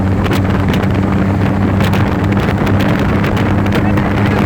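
Trike engine running steadily at highway speed, its note holding a constant pitch, with wind buffeting the microphone.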